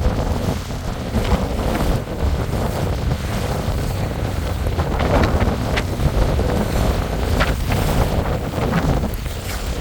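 Strong gusting wind buffeting the microphone in a heavy rumble, with choppy lake water sloshing beneath it.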